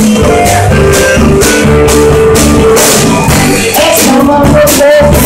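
Live band playing an upbeat rhythm-and-blues number: electric guitars, harmonica and drums, with steady held notes over a driving beat.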